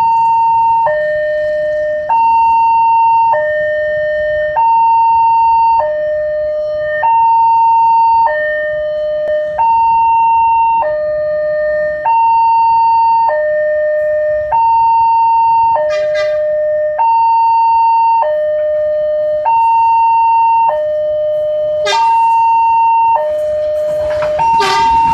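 Railway level-crossing warning siren sounding through a horn loudspeaker: a loud two-tone hi-lo call, switching between a higher and a lower tone about once a second, from the crossing's newly replaced siren.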